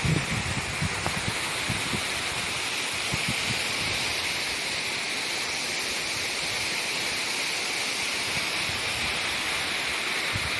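Waterfall rushing in a steady, unbroken hiss of falling water, with a few brief low bumps about the first second in.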